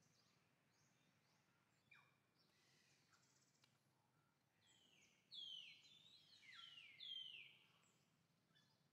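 Faint background ambience, then about five seconds in a quick run of high-pitched animal calls, each sliding down in pitch, lasting about two seconds.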